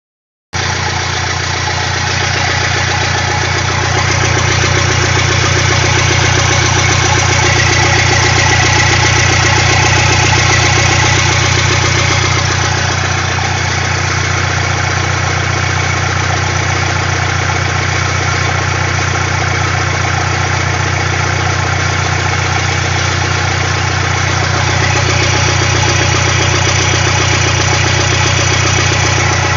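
Truck's diesel engine running at a steady idle, coming in suddenly just after the start. It runs with its belt freshly tensioned.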